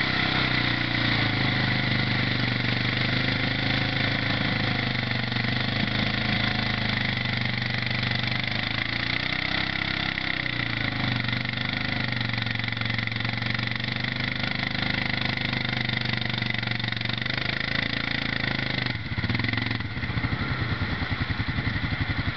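Bombardier ATV engine running at high, steady revs under heavy load, its wheels spinning while it is bogged in deep mud. The revs sag and recover about halfway through. Near the end they drop and the engine settles into a lower, pulsing beat.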